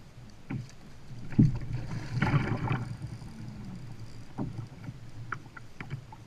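Hollow knocks against a plastic kayak hull and a second-long burst of splashing water about two seconds in, while a large gar is fought on rod and line. A few sharp clicks follow near the end.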